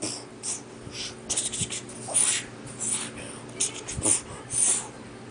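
A person's quick breathy puffs and hisses, about two a second at an uneven pace, with the soft knocking of two plush toys.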